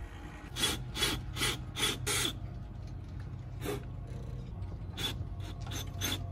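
Cordless drill running, its bit grinding into the boat's fibreglass in a series of short rasps: five in quick succession early, then a few more spread out, over the steady hum of the drill motor.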